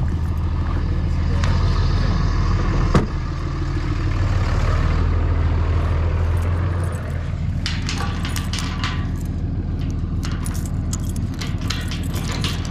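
A vehicle engine idles steadily, with a single thump about three seconds in as the truck door shuts. From about halfway on, keys jangle and a steel chain and padlock rattle as the lock on a metal gate's chain is opened.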